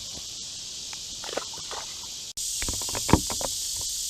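Insects buzzing steadily at a high pitch; it cuts out for an instant about two seconds in and comes back louder. A scatter of knocks and clicks sounds over it, the loudest about three seconds in.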